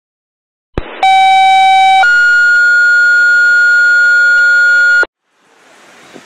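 Fire dispatch two-tone sequential paging alert, after a short click: a steady tone for about a second, then a higher steady tone for about three seconds that cuts off abruptly. These are the tones that alert a fire station to a call.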